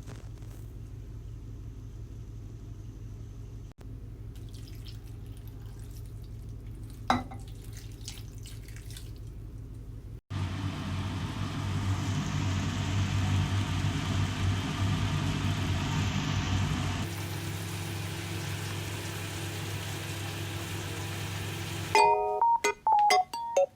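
Steady rushing noise like running water, in several cut takes after a low hum, with a short chiming mallet-instrument tune starting near the end.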